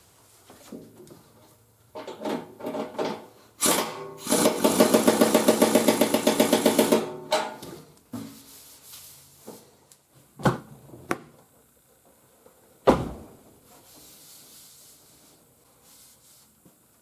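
Air impact wrench driving a fender mounting bolt: a few short bursts, then one longer rattling run of about three seconds. A few separate sharp knocks follow later.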